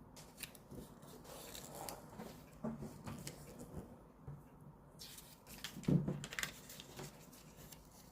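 Sheet of paper being handled, folded and creased, with intermittent crisp rustles and crackles. A single louder knock comes about six seconds in.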